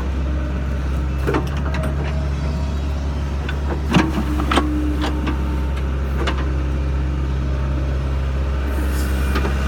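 Sany SY55C mini excavator's engine running steadily, with a few sharp knocks and clunks from the machine at work.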